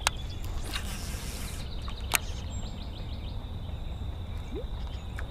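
Outdoor ambience: a steady high insect buzz over a low rumble, with two sharp clicks about two seconds apart.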